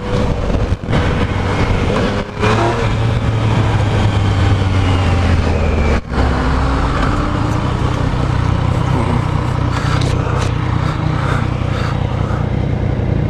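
Yamaha FZ-09 inline-three motorcycle engine running under way, heard with heavy wind rush. The engine note breaks off briefly a few times and then settles at a new pitch, as at gear changes.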